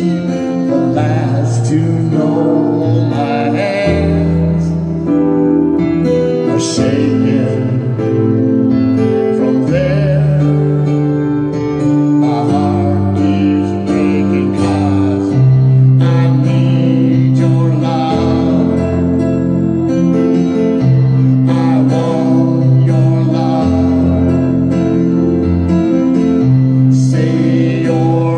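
Man singing a slow ballad into a microphone over instrumental accompaniment with guitar and sustained bass notes.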